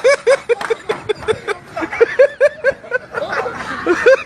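A person laughing hard in quick runs of short "ha" sounds, about four or five a second, pausing briefly twice.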